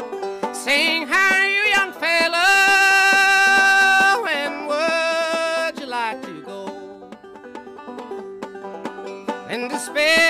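Background music in a country or bluegrass style, with plucked strings under a melody of long held notes that slide between pitches. It is quieter for a few seconds in the middle and swells again near the end.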